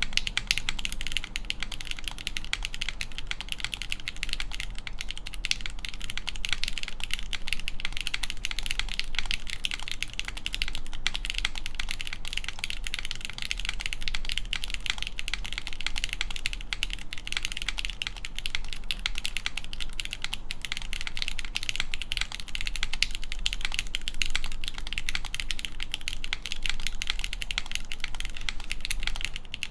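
Continuous fast typing on a Mode Tempo mechanical keyboard: lubed Gateron X switches on an aluminum plate with GMK keycaps, a dense stream of keystroke clicks. A steady low hum sits underneath.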